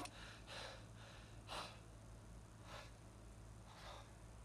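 A man breathing hard, with short faint puffs of breath about once a second over near silence.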